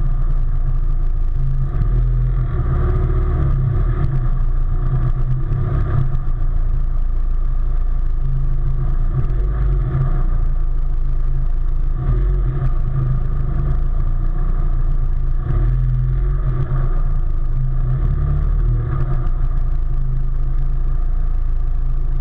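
A vehicle engine running steadily at low speed, with a constant low rumble and an even hum.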